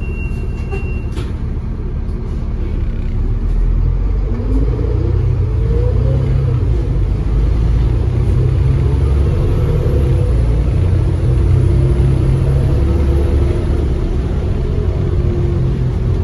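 Diesel engine and road rumble of a Volvo B7TL double-decker bus heard from inside the passenger cabin. A short high beep sounds in the first second, then from about four seconds in the engine note rises as the bus picks up speed and settles into a steady drone.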